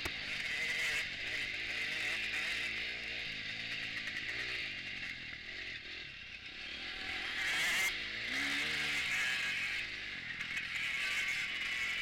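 KTM 250 four-stroke motocross bike's engine heard from on board, revving up and down with wind rushing over the camera. The engine eases off around the middle and picks up again about eight seconds in.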